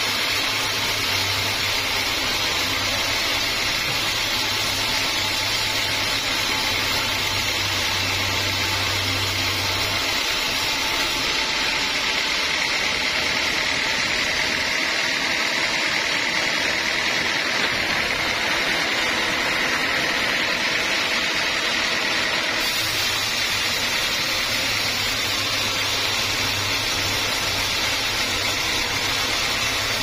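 Band sawmill blade cutting lengthwise through a large teak log, making a loud, steady hissing rush of sawing. A low machine hum underneath drops away for a stretch in the middle and returns near the end.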